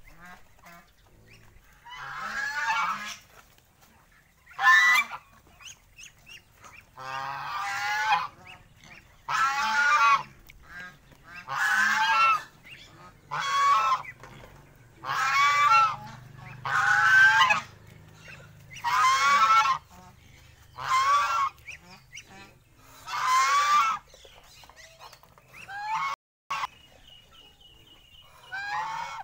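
Domestic goose honking: about a dozen long, harsh calls, one every two seconds or so.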